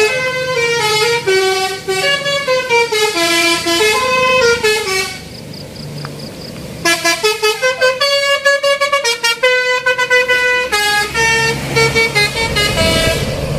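Telolet horn on an odong-odong tourist mini train playing a tune of quick stepped notes, dropping away about five seconds in, then resuming with a run of short rapid toots and longer held notes.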